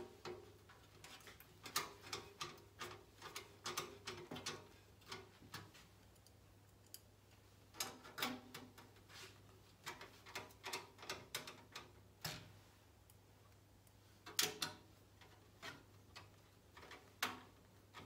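Faint metal clicking and tapping from a screwdriver working screws and standoffs into the steel motherboard tray of a PC case, in three runs of quick clicks separated by short pauses.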